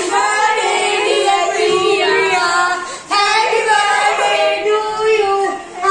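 A woman singing in a high voice, holding long notes, with a short break about three seconds in.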